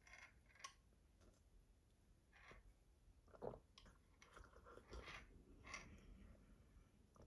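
Faint mouth sounds of a person sipping a drink and chewing, with a few soft clicks in between.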